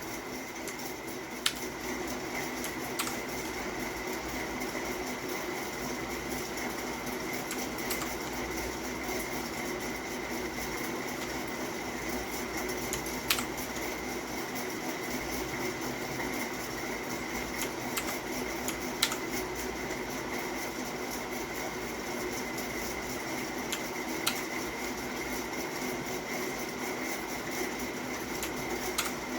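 Steady mechanical hum with a constant high tone, broken by a few single sharp clicks several seconds apart.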